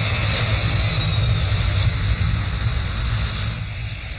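Jet airliner taking off, its engines at takeoff power: a steady deep rumble with a high whine, fading near the end.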